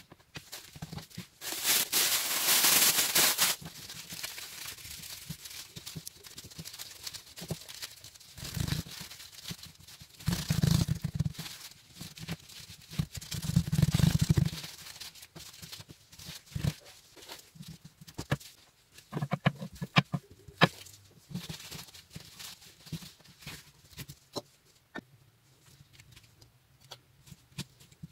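Gloved hands working bun dough on a tabletop: a loud rustling scrape as a plastic bench scraper cuts the dough, then dull thumps and rubbing as the dough piece is pressed flat by hand, with scattered small clicks and handling sounds.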